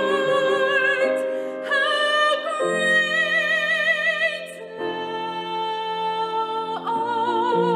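A woman singing a slow solo with vibrato on long held notes, accompanied by grand piano chords. The notes change every second or two.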